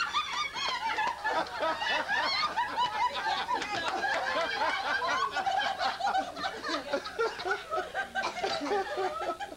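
A group of people laughing and chuckling together, many voices overlapping, easing off near the end.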